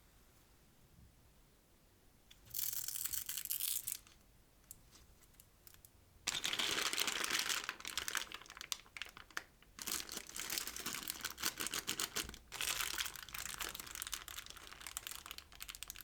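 Packaging crinkling and tearing in bursts: one short burst about three seconds in, then longer stretches of dense crackling from about six seconds on, with brief pauses.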